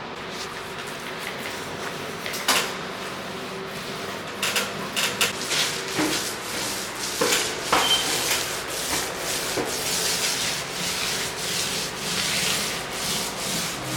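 A hand tool rubbing and scraping across drywall in irregular, repeated strokes, with a few brief squeaks, as in drywall finishing work.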